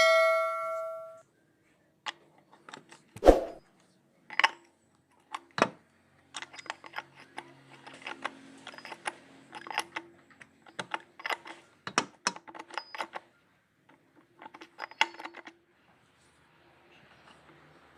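Metal tools and parts being handled during an engine oil change: a struck metal piece rings out and dies away at the start, then irregular clicks, clinks and knocks come in clusters.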